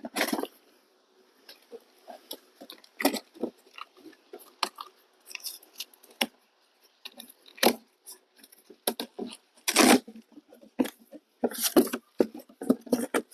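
Cardboard boxes and plastic packaging being handled and opened: irregular crinkling, crackling and tearing with short pauses.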